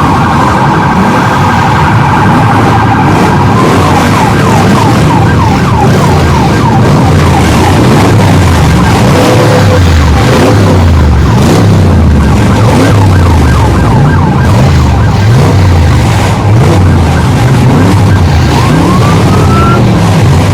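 Many vehicle engines running and revving together, their pitches rising and falling over one another, with a siren wailing over them at the start and sweeping up again near the end.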